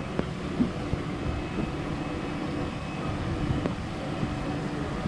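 Steady low rumble of wind buffeting the microphone, with a few light knocks.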